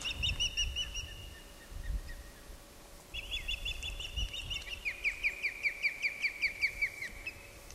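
Osprey calling: a series of short, high, down-slurred whistled chirps, a brief run at the start and a longer run from about three seconds in, at about three to four notes a second.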